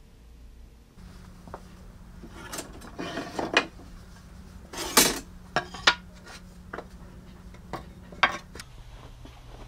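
Hardwood boards knocking and clattering against each other and the lumber rack as they are pulled out and gathered by hand: a run of sharp knocks early, the loudest about halfway through, then a few lighter ones.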